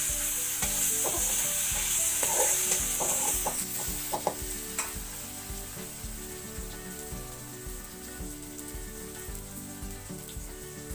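Sliced onions frying in hot oil in a wok: a loud sizzle that eases after the first few seconds into steady frying. A stirring utensil knocks and scrapes against the pan several times between about one and five seconds in.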